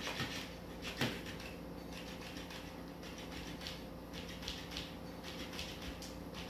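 Flopping fish cat toy on a tile floor, its motorised tail flapping and rattling in bursts of fast ticking while a cat bats and bites at it, with a sharp knock about a second in.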